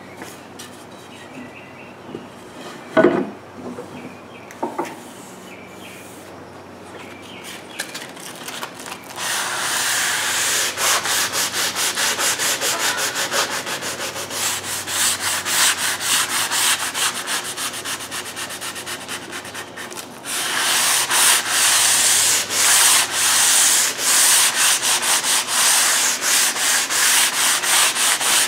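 Green Uneeda Ekadiamond film-backed foam sanding sponge (100 grit) rubbed back and forth by hand along a wooden molding, a steady rhythmic scraping of about two strokes a second. Before it, a few sharp knocks of the molding being handled on the bench; the sanding starts about nine seconds in, eases briefly around twenty seconds in, then carries on louder.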